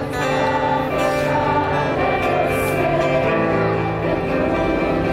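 Gospel music with sustained instrumental chords and a cymbal hit about every second and a half, between sung lines.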